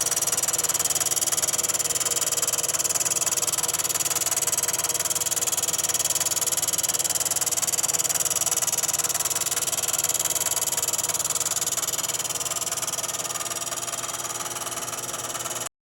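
Milling machine fly-cutting the anvil surface of a bench vise: a steady machine run with a dense high hiss of cutting. It fades slightly, then cuts off abruptly at the very end.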